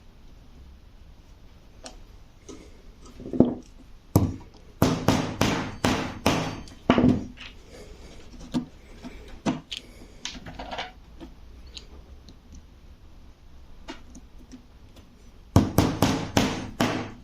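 Hammer strikes knocking holes in a small brass strip for rivets: a run of sharp knocks about four seconds in, a few single taps, and another quick run near the end.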